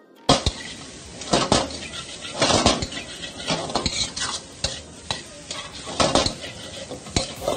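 Metal spatula clanging and scraping against a steel wok as diced jackfruit and vegetables are stir-fried. Loud irregular clangs come about once a second over a steady sizzle of frying food. The sound begins abruptly just after the start.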